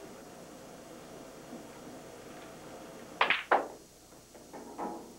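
Pool shot: two sharp clicks about a third of a second apart, the cue tip striking the cue ball and the cue ball hitting an object ball, about three seconds in. A few softer knocks of the balls follow near the end.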